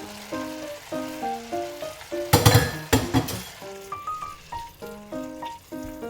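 Food sizzling in a frying pan, with a louder noisy burst of sizzle lasting under a second about two and a half seconds in. Light keyboard-style background music plays over it.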